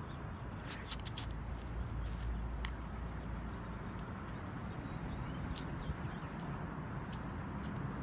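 Outdoor background noise: a steady low rumble, like wind on the microphone or distant traffic, with a few sharp clicks (a quick cluster about a second in, then single ones) and faint high chirps.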